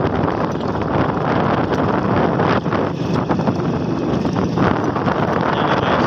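Loud, steady wind noise on the microphone, with a vehicle running underneath, as heard while riding on it.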